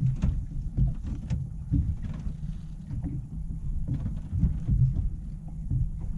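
Wind rumbling on the microphone and small waves slapping a boat's hull: a low, uneven rumble with faint splashy ticks.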